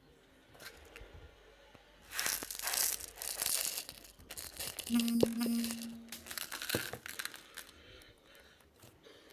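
Slime being handled and worked in the hands, giving crinkling, tearing noises in a string of bursts that start about two seconds in and fade out near the end. A short low steady tone sounds in the middle.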